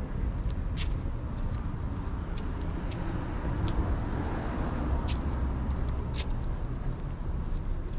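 City street traffic: a steady low rumble of cars running along the road, with scattered sharp clicks scattered through it.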